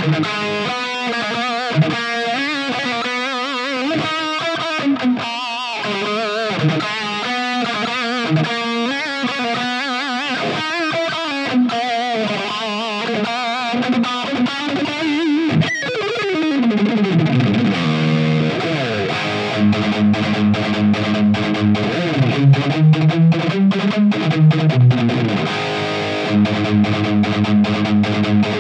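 Fender Strat Plus electric guitar played through distortion and effects. The first half is lead lines with wavering pitch. About halfway through a long falling pitch glide leads into chordal riffing with short, rhythmic picked strokes.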